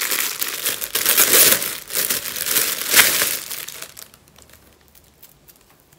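Clear plastic packaging bag crinkling loudly as a folded cushion cover is handled and pulled out of it. The crinkling dies down to faint rustles after about three seconds.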